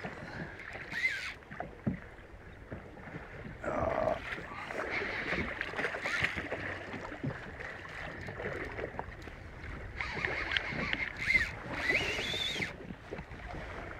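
Sea water slapping against the hull of a small aluminium boat in a light chop, with a few short rising chirps about a second in and again near the end.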